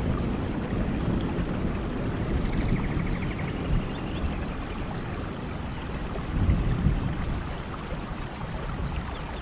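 Steady rain, an even hiss with a low rumble underneath that swells briefly about six and a half seconds in. Faint, short, high chirps come through a few times.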